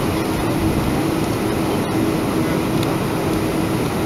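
A Boeing 737-500's CFM56-3 engines running at taxi power, heard inside the passenger cabin as steady engine and airflow noise with a steady low hum.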